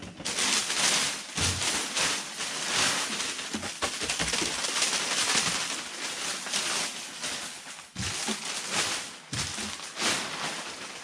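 Packing material crinkling and rustling as it is pulled out of a cardboard box and crumpled, with a few light knocks.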